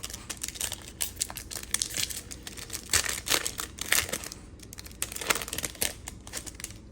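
Crinkling and rustling with irregular small clicks, from hands handling a freshly opened pack of trading cards.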